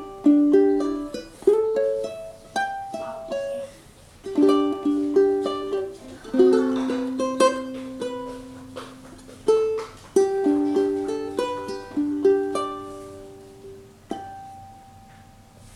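Collings UT-1 mahogany tenor ukulele with Aquila strings being played: a run of chords and melody notes, ending on a single note that rings out and fades.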